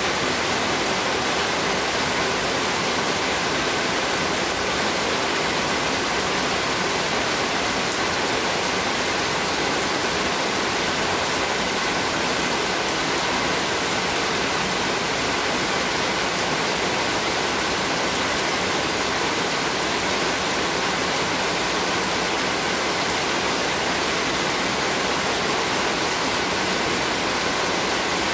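Heavy rain pouring steadily, an even rushing hiss of drops falling on trees and waterlogged ground.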